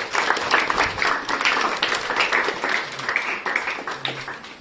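Audience applauding: dense hand clapping that dies away near the end.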